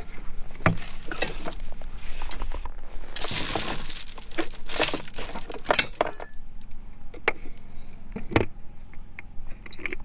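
Rummaging in a truck camper's exterior storage compartment: hatch door and stored items knocking, clicking and rustling, with a hard knock about a second in and another about eight seconds in. Underneath runs the steady hum of a running generator.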